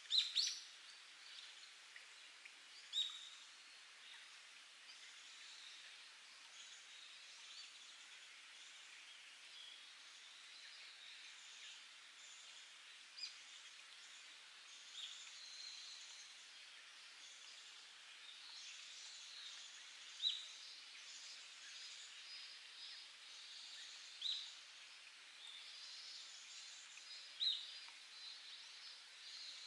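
Spring water trickling and seeping over rock, a soft steady hiss, with short sharp high notes every few seconds and faint wild bird chirps above it.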